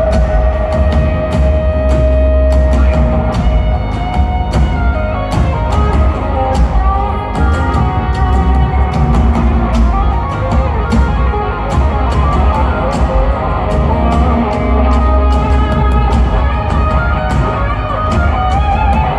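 Live rock band playing an instrumental passage: electric guitars, bass and drum kit, loud and steady with regular drum hits, heavy in the low end.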